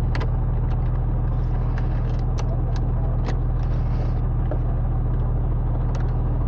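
Porsche 981's flat-six engine idling steadily, with scattered light clicks and taps from hand work on the gear shifter.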